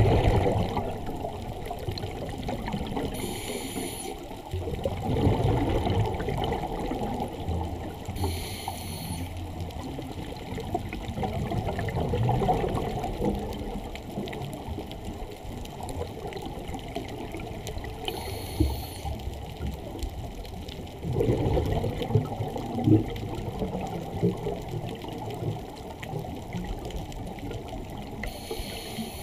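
Scuba diver breathing through a Scubapro regulator, heard underwater: a short hiss on each inhalation, four times, with bursts of bubbling from the exhaled air in between. The sound is muffled.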